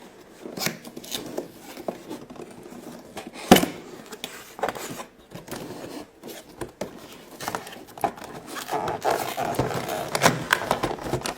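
A toy box being opened and its contents handled: scraping, rustling and scattered clicks, with one sharp knock about three and a half seconds in.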